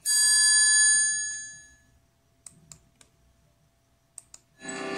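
Sound effects from a recorded children's story: a bright bell-like chime strikes and rings out, fading over about two seconds. A few faint clicks follow, and near the end a rising sweep begins.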